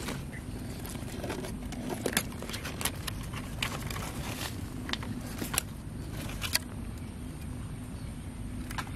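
Dry leaves and twigs crackling in scattered sharp clicks for the first six or seven seconds, then fading, over a steady low rumble.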